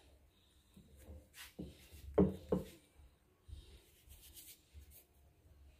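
Hands pressing and rubbing a ball of wheat-flour chapati dough on a flour-dusted rolling board, with a few soft knocks against the board, the loudest about two seconds in.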